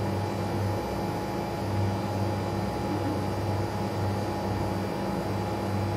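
Steady low machine hum with a slight uneven pulsing.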